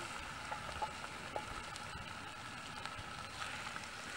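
Meat sizzling in a preheated cast-iron Dutch oven over charcoal, a steady sizzle that starts as the meat is tipped in, with a few light clicks as it is stirred.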